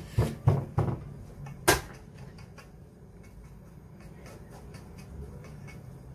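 Hands pressing shredded kataifi dough into a round baking pan: a few dull thumps in the first second and a sharper knock just before two seconds in, then faint rustling and light ticks.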